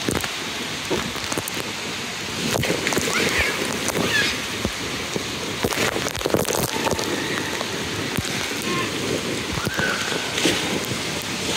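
Steady rain-like hiss of water spraying down from overhead fountain fixtures and splashing onto an indoor waterpark's lazy river.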